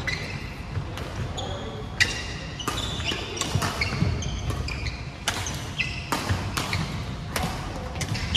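Badminton rally: repeated sharp hits of rackets on the shuttlecock, with short high squeaks of court shoes on the wooden floor.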